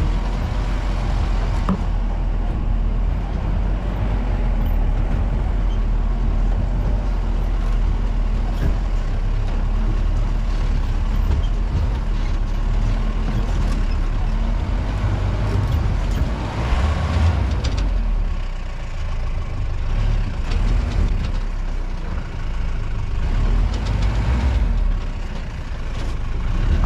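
Off-road jeep's engine running as it drives over a rough track: a loud, steady low rumble with uneven jolts, swelling briefly about two-thirds of the way through.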